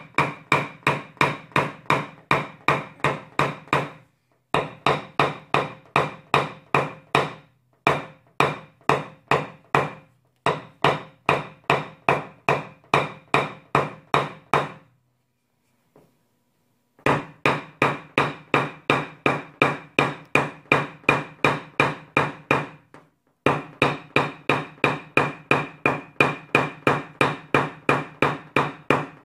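Paintless-dent-repair knockdown punch struck with a small hammer against a car's sheet-metal trunk lid: quick, even taps, about four a second, each ringing briefly, knocking down raised hail dents. The taps come in runs with short pauses, and stop for about two seconds just past the middle.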